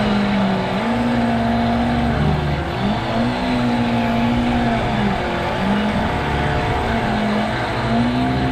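Radio-controlled model boat motor running at high revs, its note dipping and climbing back up several times as the throttle is eased off and opened again.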